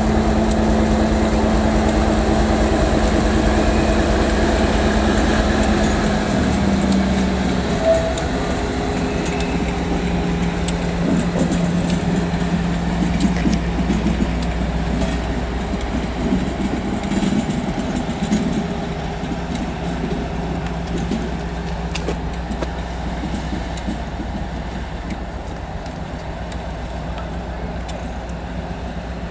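A train's steady engine drone at the station. About six seconds in it steps down in pitch, then slowly fades, with scattered short clicks.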